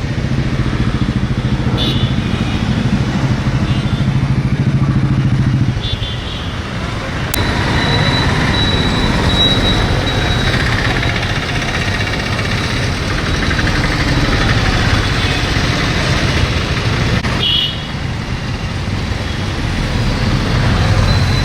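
Road traffic passing close by: an engine hum for the first several seconds, with short horn toots about two, six and seventeen seconds in, then a steady noisy wash of traffic.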